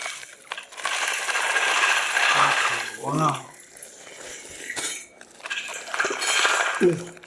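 Small stones clattering and rattling against each other as hands dig through a drum full of them, in two long stretches with a short voice sound between.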